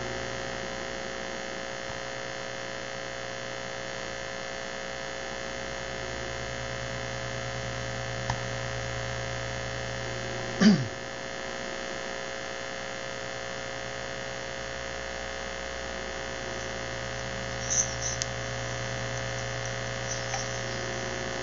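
Steady electrical mains hum with several constant tones. About 11 seconds in there is one short, loud, falling tone, and a few faint clicks come around 8 and 18 seconds.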